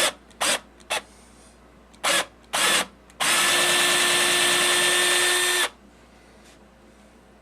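Electric drill with a 5/16-inch bit blipped in a few short bursts, then run steadily for about two and a half seconds before it stops, drilling out a camera's stripped 1/4-inch tripod-thread hole to a set depth.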